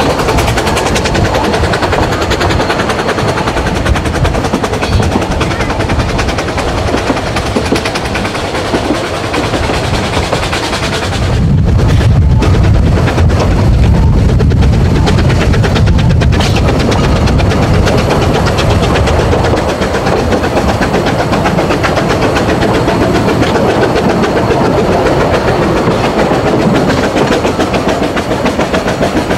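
Narrow-gauge steam train running, heard from an open carriage: a continuous dense rattle and clatter of wheels and carriages on the track. For several seconds around the middle a deeper, heavier rumble comes in.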